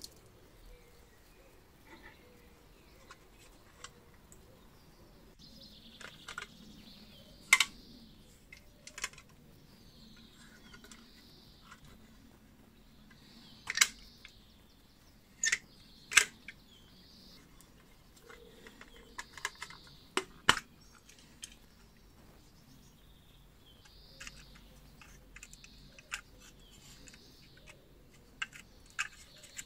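Scattered sharp clicks and knocks of an old black-painted tin lamp being handled: its metal case, wire handle and hinged back cover tapping and snapping as it is turned over and opened.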